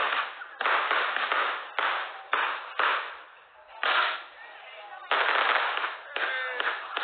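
Fireworks going off: a quick run of sharp bangs, about two a second, with a short lull about three seconds in. The sound is thin and cut off in the treble, as heard through a phone's live stream.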